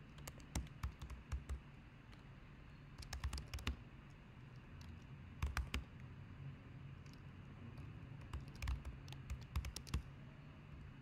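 Computer keyboard typing in short bursts of keystrokes with pauses between them, over a faint low steady hum.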